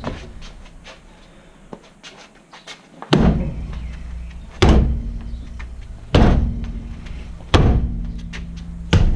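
Kicks against the tyre of a Holden Commodore's stuck alloy wheel: five heavy thumps about a second and a half apart, starting about three seconds in, each with a low rumble that dies away. The wheel is seized to the brake rotor and is being knocked to break it free.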